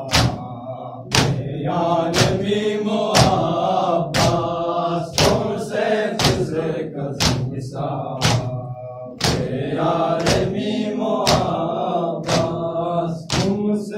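A group of men chanting a Balti noha, a Shia lament, in unison. Each open hand strikes the chest in matam, giving a loud beat about once a second that keeps time with the chant.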